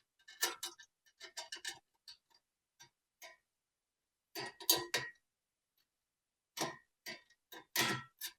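Metallic clicking in three short bursts of quick clicks with a slight ring, made while the stainless steel cables of a cable railing kit are being tensioned.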